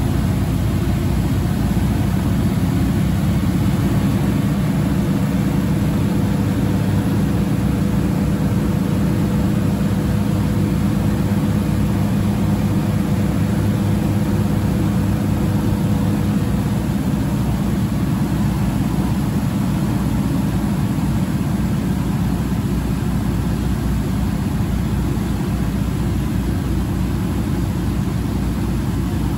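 Steady drone of a Grumman Goose flying boat's engines and propellers, heard from inside the cockpit at approach power while descending to a runway. A fainter higher tone in the drone fades out a little past halfway.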